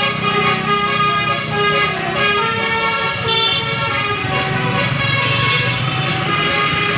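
Bus-mounted Basuri "telolet" multi-tone air horn playing a melody of quickly changing notes, over the low running of the bus engine.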